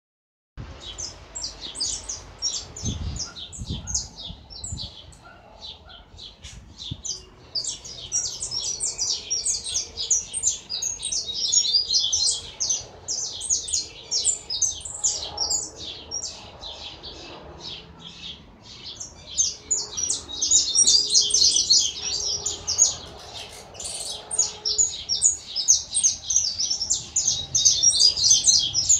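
A small yellow caged finch singing a long, nearly unbroken song of rapid high chirps and trills, getting busier after the first few seconds.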